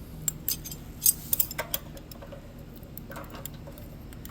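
Hand tools clicking and clinking against the valve rocker's adjusting and lock nuts of a small single-cylinder engine while the valve lash is set: a scattered run of sharp metallic ticks, bunched together about a second in and again near three seconds.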